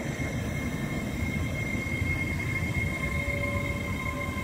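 GWR Hitachi Intercity Express Train (Class 800-series) rolling past along the platform: a steady rumble of wheels on rail with a steady high whine over it.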